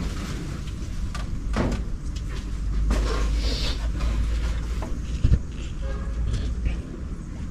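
A steady low rumble with a few scattered knocks, the sharpest about five seconds in; the rumble eases near the end.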